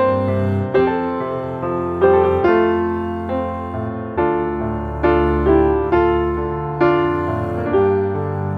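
Background music: a slow, gentle piano piece, with notes and chords struck about once a second and left to ring out.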